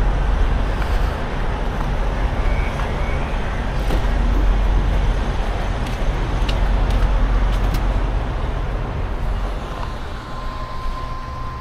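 Steady low rumble of idling trucks and passing traffic around a truck stop, easing off near the end.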